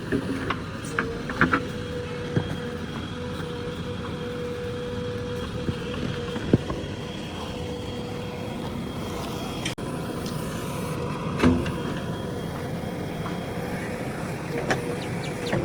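Diesel engine of a JCB backhoe loader running steadily at work, with a few sharp knocks and clanks scattered through it.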